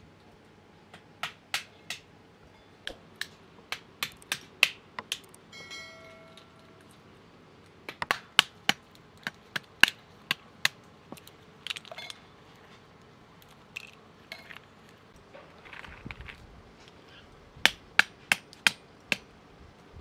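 Walnuts being cracked open with a small hammer: sharp cracks and knocks in quick bursts of several strikes, with pauses between the bursts. A brief ringing tone sounds about six seconds in, and a soft rustle comes around sixteen seconds in.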